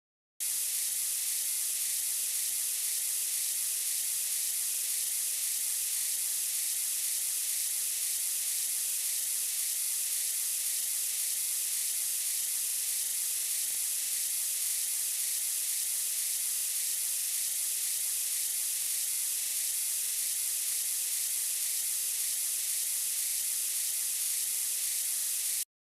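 Steady, even hiss that starts abruptly and cuts off suddenly about 25 seconds later, with no change in between.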